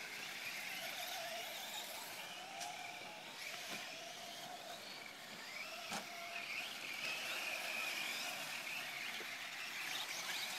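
Electric RC short course trucks, among them a Team Associated SC10 4WD, racing on a dirt track: the high whine of their motors and gears rises and falls in pitch as they accelerate and brake. Two sharp clicks are heard, about a quarter and a little over halfway through.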